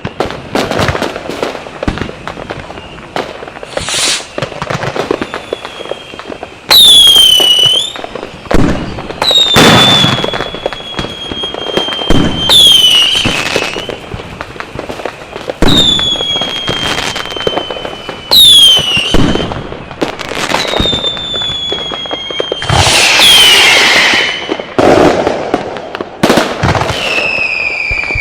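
Firecrackers and whistling fireworks going off in a dense barrage: a steady run of sharp bangs and crackles, with about seven loud high whistles that each drop quickly and then fall slowly in pitch.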